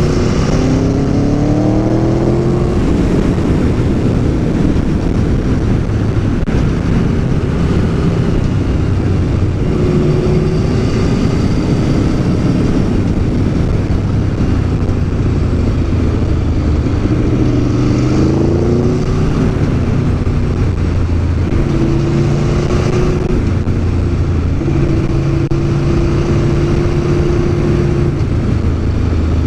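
Aprilia Tuono V4 1100 APRC's V4 engine under way, the note rising as it accelerates near the start and again about two-thirds of the way through, holding steady in between.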